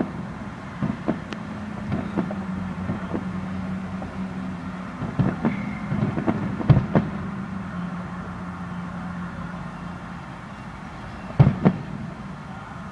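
Distant fireworks going off in scattered bangs and pops. The loudest come about two-thirds of the way in and near the end, over a steady low hum.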